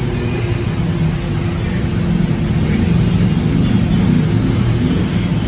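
Steady low engine rumble, with a faint steady hum over it.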